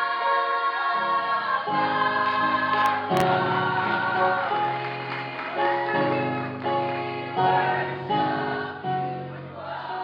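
A choir singing held chords in a gospel style, the chords changing every second or so.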